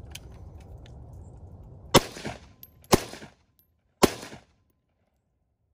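Three shots from an AR-15 rifle chambered in 6mm ARC, about a second apart, each followed by a short echo.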